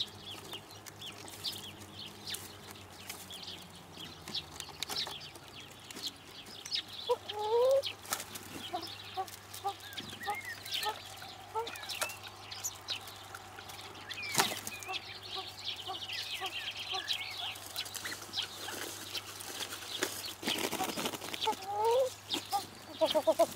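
Common pheasants calling in short harsh clucks, once about a third of the way in and again near the end. Small songbirds chirp in the background.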